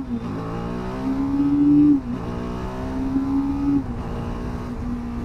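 TVS Apache RR 310's single-cylinder engine accelerating hard through the gears, its pitch climbing in each gear and dropping at upshifts about two and four seconds in, then holding steadier near the end.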